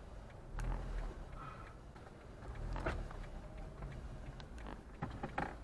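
Low rumble of a stationary car idling, heard from inside the cabin, with a few sharp clicks, a cluster of them near the end.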